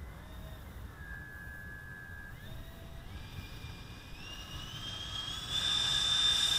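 Twin 70 mm electric ducted fans of a Dynam Me-262 RC jet whining and spooling up, the pitch climbing in several steps as the throttle is advanced and growing louder toward the end. Wind rumbles on the microphone underneath.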